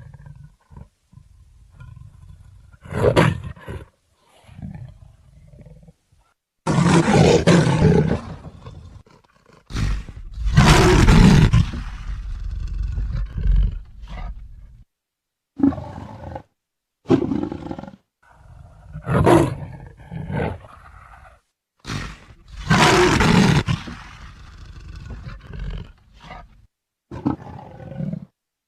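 Leopard roaring: a string of separate calls, some short and a few longer and louder, about ten in all, with brief silences between them.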